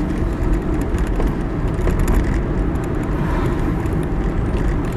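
Steady rumble of a car's engine and tyres on the road, heard from inside the moving car's cabin.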